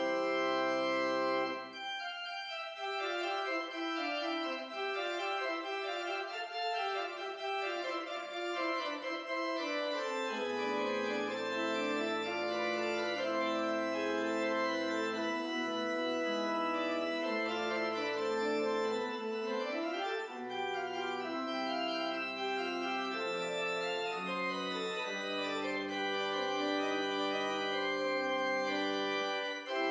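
Church organ playing slow music in sustained chords. The deep bass notes drop out about two seconds in and come back about ten seconds in.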